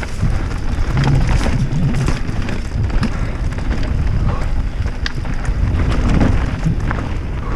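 Wind buffeting a helmet-mounted camera's microphone during a mountain bike descent, over tyres rolling on dirt and leaf litter, with frequent small clicks and rattles from the bike.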